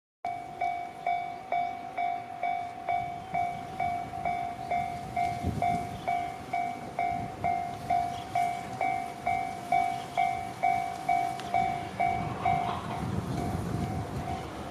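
Japanese level-crossing warning alarm ringing in an even, bell-like ding about twice a second. Near the end a low rumble from an approaching train rises and the alarm's beat blurs.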